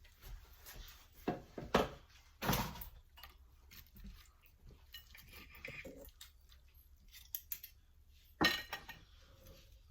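A knife clinking and scraping against a dish while cutting cooked chicken, with a few sharp clanks, the loudest about two and a half seconds in and again near the end.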